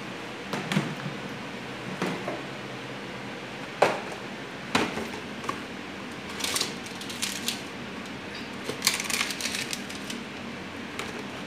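Clicks, knocks and rattles of jars with plastic lids being handled and set down on a kitchen counter, with one sharp knock about four seconds in and a quick run of rattling clicks near the end. Underneath runs the steady hum of a kitchen exhaust fan.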